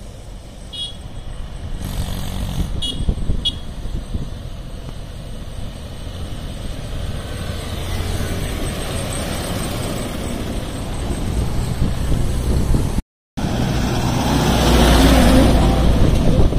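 Mahindra 575 DI tractor's four-cylinder diesel engine running steadily under a heavy sugarcane load, growing louder as it approaches and passes. The sound cuts out briefly about 13 seconds in, then another tractor engine passes closer and louder.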